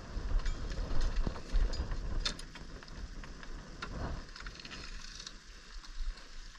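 Wind rumbling on the microphone, with scattered clicks, knocks and rattles as spearguns and dive gear are handled in a pickup truck's bed.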